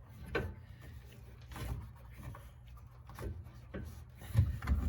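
Scattered metal clunks and knocks as a car exhaust is worked into its rubber hangers, with the two loudest near the end.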